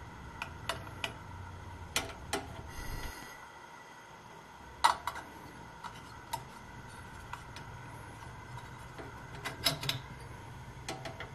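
Scattered sharp clicks and ticks from a propane camping stove's control knob being turned by hand, the loudest about halfway through and a quick cluster near the end, over a faint low rumble that drops away about three seconds in.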